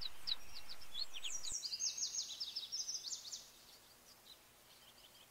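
Birds chirping in a series of quick high chirps, dropping to very faint about three and a half seconds in.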